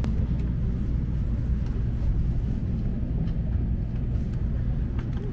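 Steady low rumble of an N700-series Shinkansen bullet train running, heard inside the passenger cabin, with a few faint clicks from the plastic armrest bottle holder being handled.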